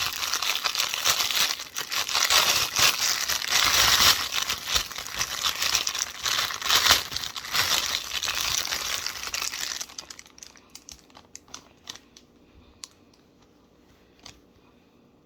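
Crinkly packaging around a small plush toy being crumpled and torn open by hand. The dense crinkling stops about ten seconds in, leaving only a few faint light ticks and rustles.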